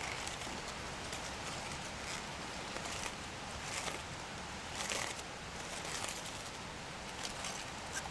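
Cooking over a wood fire: a steady hiss with scattered crackles and pops, a few louder pops near the middle.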